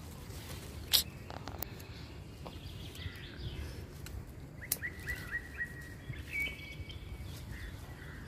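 Small birds chirping outdoors: a quick run of short, repeated chirps about halfway through, then a brief held whistle. A single sharp click about a second in, with a few fainter clicks, is the loudest thing.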